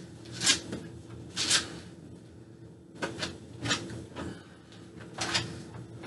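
Paintbrushes stroking paint onto a refrigerator door: several short scrubbing swishes about a second apart, over a steady low hum.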